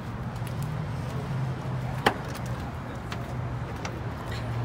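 A single sharp knock about two seconds in, over a steady low rumble.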